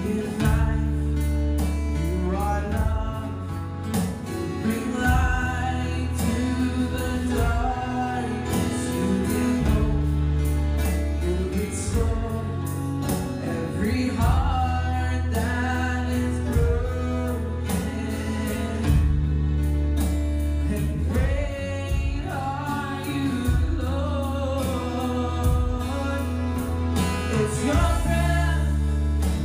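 A worship song: singing over instrumental accompaniment, with long held bass notes under the melody.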